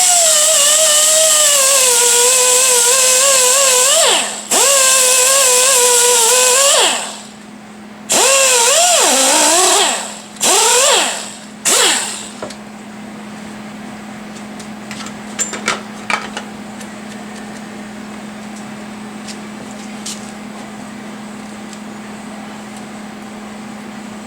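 A small high-speed handheld power tool trimming a 3D-printed plastic bracket: four bursts of high-pitched motor whine in the first twelve seconds, the pitch dropping and wavering as the tool bites into the plastic. After that, only a low steady hum and a few light clicks.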